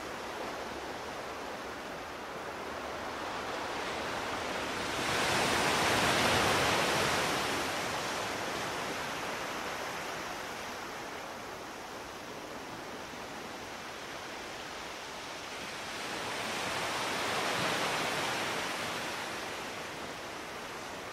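Ocean surf washing ashore as a steady rushing noise, swelling twice as larger waves break, about five seconds in and again about sixteen seconds in.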